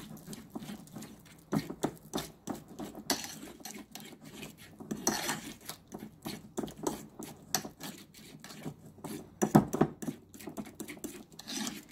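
A metal utensil stirring thick avocado, yogurt and honey-mustard dressing in a ceramic bowl: rapid, irregular clinks and scrapes against the bowl, with one sharper knock near the end.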